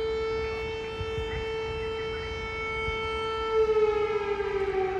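Air-raid siren sounding one held tone, which begins to slide slowly down in pitch about three and a half seconds in.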